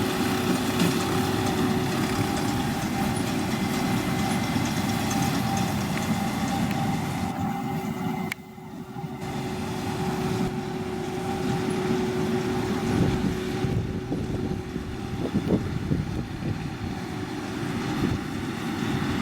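John Deere 7530 tractor running steadily with a Massey Ferguson 2270 square baler working behind it. The level drops sharply for under a second about eight seconds in.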